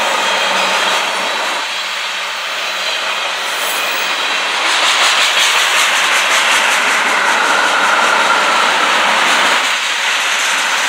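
Union Pacific tank cars rolling past: a steady rush of steel wheels on rail that grows louder about halfway through, with fast rhythmic clicking and a whine that slides down in pitch.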